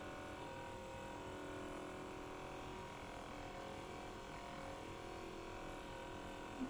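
Handheld fascial massage gun running with a steady electric buzz.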